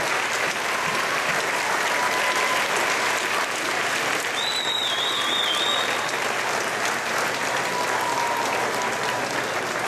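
Audience applauding, with steady dense clapping. About halfway through, a high, wavering whistle rises over it briefly.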